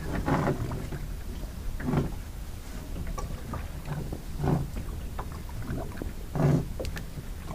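Water lapping against the hull of a small drifting boat, over a steady low rumble, with a few short louder slaps.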